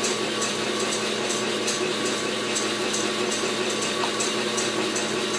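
Electric mixer whipping heavy cream into chantilly, its motor running with a steady hum. Soft taps of a knife slicing kiwi against a plastic cutting board sound over it.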